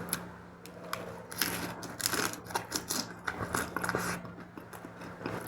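Irregular small clicks and light rustling, the sound of objects being handled close to the microphone, over a faint steady hum.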